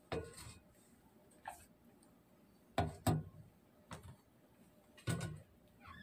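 Lidded plastic food tubs of rice knocking and clacking as they are picked up off a stone countertop and set inside a microwave oven. About six separate knocks, loudest as a close pair about three seconds in and again about five seconds in.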